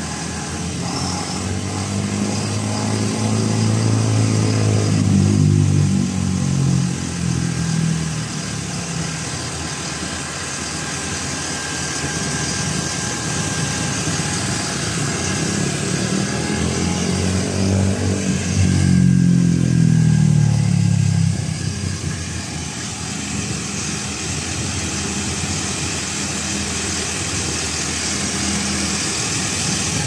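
Diesel engine of an Aimix AS3.5 self-loading concrete mixer running, revving up and back down twice, a few seconds in and again after about fifteen seconds, while its hydraulics work the mixing drum.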